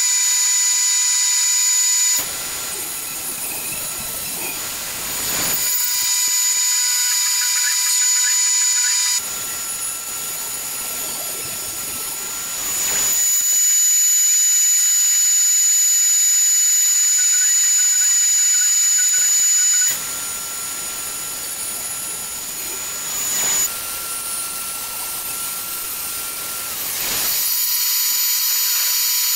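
Jointer of a combination saw-planer machine running with a steady high whine. Four stretches of rougher cutting noise come as hardwood boards are fed over the cutter head to square their edges.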